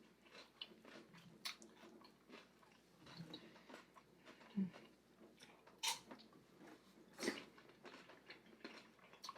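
A person chewing food close to the microphone, faint, with scattered short mouth clicks and smacks, a few of them louder.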